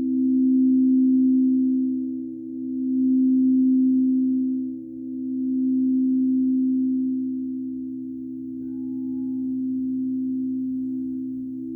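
Singing bowl sustained in a pure, steady tone, with a second, higher tone alongside it, swelling and fading in slow waves about every two and a half seconds.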